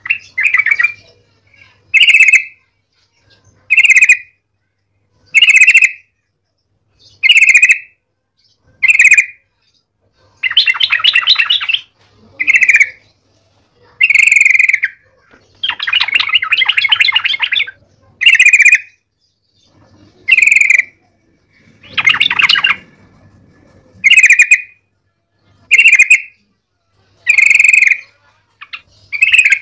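Yellow-vented bulbul (trucuk) in full song, calling over and over: loud short phrases about every second and a half to two seconds, with three longer, rapid chattering runs mixed in.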